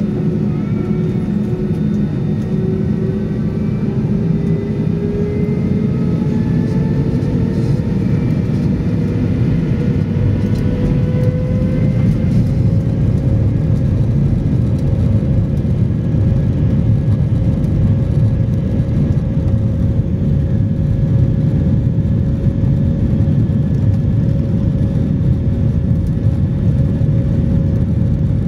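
Airbus airliner's jet engines spooling up to takeoff thrust, heard from the cabin over the wing: a steady whine that rises in pitch over the first dozen seconds and then holds, over a deep, constant rumble that grows slightly as the plane gathers speed on its takeoff roll.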